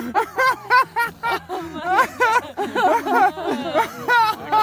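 People laughing and talking in excited voices that swing up and down in pitch.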